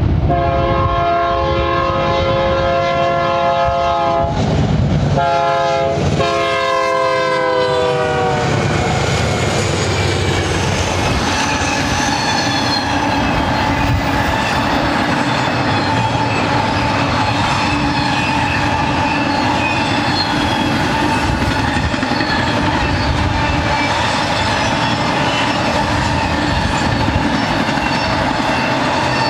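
Horn of a BNSF GE C44-9W locomotive sounding several blasts, the last long one sliding down in pitch as the locomotive passes. Then the double-stack intermodal train rolls by steadily, wheels clattering on the rail joints with thin steady squeals.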